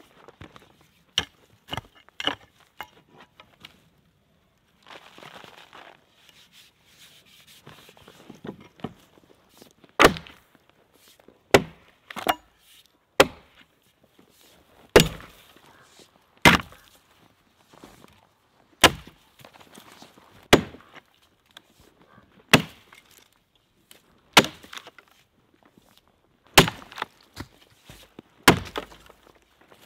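Axe chopping into wood: a few lighter knocks, then from about a third of the way in about a dozen sharp strikes, one every second and a half to two seconds.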